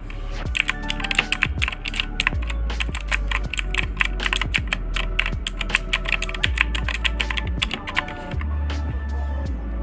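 Fast typing on a Gamen Titan II mechanical keyboard with clicky Outemu Blue switches: a rapid run of sharp key clicks that starts about half a second in and stops near the end, over background music.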